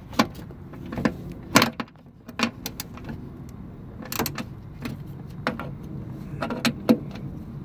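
Scattered, irregular metallic clicks and knocks of a socket wrench and bolts being worked on a truck's wiper motor mounting bracket, over a steady low hum.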